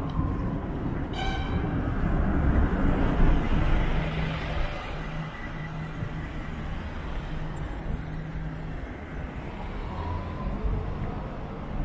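City street traffic. A bus passes close by, its engine rumble swelling to its loudest between about two and four seconds, over the steady noise of other vehicles.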